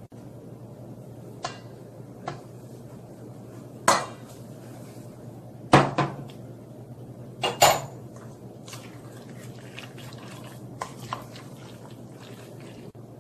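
Spoon clinking and knocking against a stainless steel mixing bowl while stirring a thick marinade: scattered sharp clinks, the loudest pairs about six and eight seconds in, over a steady low hum.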